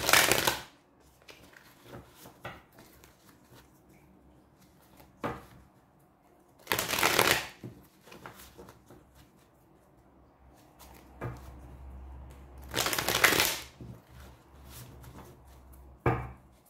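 A deck of tarot cards being riffle-shuffled by hand: three quick riffles, near the start, about 7 seconds in and about 13 seconds in. Between them come softer taps and clicks of the cards being handled and squared.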